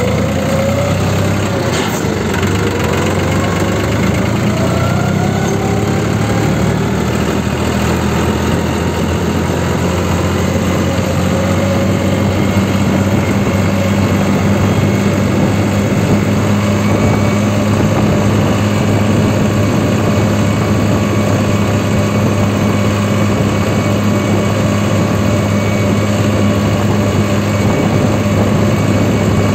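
New Holland 3630 Super Plus tractor's diesel engine under way on the road. Its pitch rises over the first several seconds as it picks up speed, then holds steady at cruising speed. There is a single click about two seconds in.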